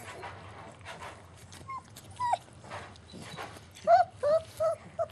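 German Shepherd puppies crying in short, high yelps: two single falling cries, then a quick run of four or five louder ones about four seconds in. Paper bedding rustles under the puppies' movement.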